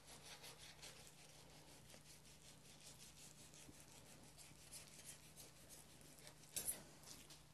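Fillet knife drawn along between fish flesh and skin on a cutting board, separating the skin from the fillet: faint, closely repeated short scraping strokes, with a brief louder scrape near the end.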